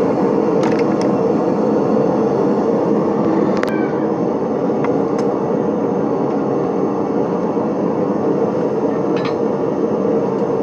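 Steady roar of a gas burner heating the work, with a few light metal clinks on top; one clink about three and a half seconds in rings briefly.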